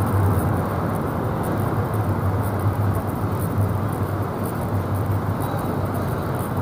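Steady low rumble of city background noise with a low hum underneath, no single distinct source standing out.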